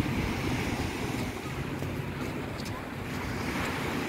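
Small waves breaking on a pebbly beach, a steady wash of surf, with wind rumbling on the microphone.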